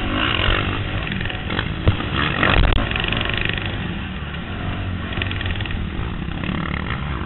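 Kawasaki KX250F motocross bike's four-stroke single-cylinder engine revving up and down with the throttle, heard from on the bike. A sharp knock about two seconds in, then a louder rough rush of noise just after.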